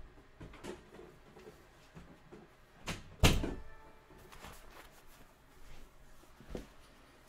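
Scattered knocks and rustling as a person moves back to the desk, with one loud thump about three seconds in.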